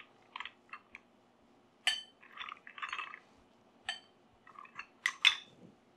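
Cooked clams picked up by hand and set into ceramic bowls: clam shells clinking against the china and against each other. It is a scatter of sharp clinks with short rattles of shells between them, and the loudest pair of clinks comes near the end.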